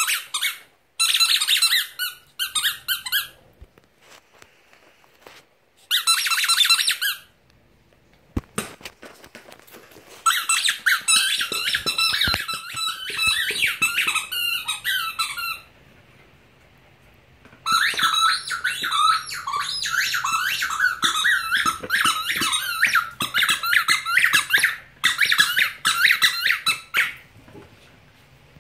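Squeaky plush dog toy squeaking over and over as it is squeezed, in quick runs of high-pitched squeaks with short pauses between them; the longest runs last several seconds.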